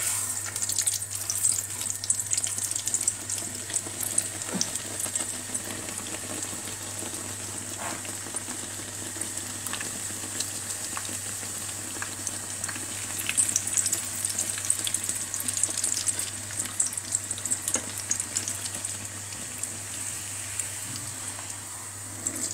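Pizza fritta dough frying in hot oil in a small pan: a steady sizzle with a dense crackle of popping oil.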